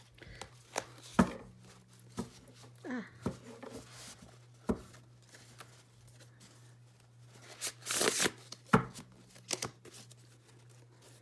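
A tarot deck of thin, bendy cards being handled and shuffled by hand: scattered taps and clicks as the cards are gathered and squared, and a short riffle flutter about eight seconds in. A steady low hum runs underneath.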